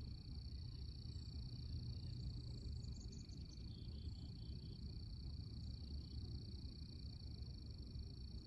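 Outdoor nature ambience: a steady low rumble under a steady high-pitched drone, with a short run of small bird chirps about three seconds in.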